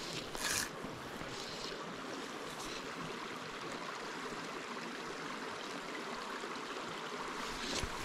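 Small rocky mountain creek running over stones: a steady rush of water, with a brief rustle about half a second in.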